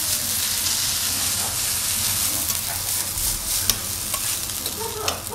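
Fried rice sizzling on a hot steel teppan griddle while a metal spatula and fork scrape and chop through it, with a couple of sharp clicks of metal on the plate.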